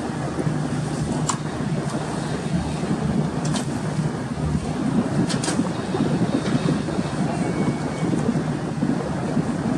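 Steady rumble of a passenger ship under way, its engines humming low beneath wind and sea noise, with a few light clicks.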